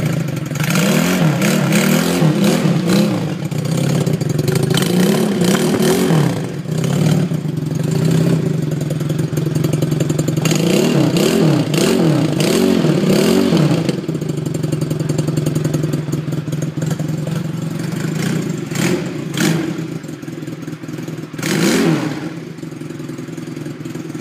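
Regal Raptor Spyder 250 cruiser motorcycle idling through a stock muffler whose end cap has been drilled with holes to make it louder. The throttle is blipped in repeated short revs that rise and fall, in clusters near the start, again from about ten to fourteen seconds in, and twice near the end.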